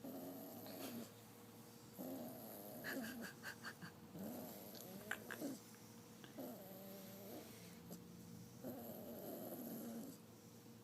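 English bulldog puppy snoring in her sleep: about five faint, rasping snores, each about a second long and roughly two seconds apart.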